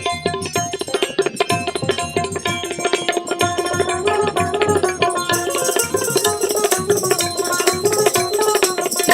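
Instrumental interlude of a Baul folk song: hand drums playing a brisk rhythm under a sustained melodic line, with brighter, higher percussion joining about five seconds in.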